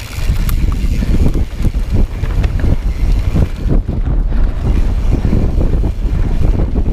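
Wind rushing over an action camera's microphone on a cross-country mountain bike, with a steady low rumble and rapid knocks and rattles as the bike rolls over rough dirt singletrack.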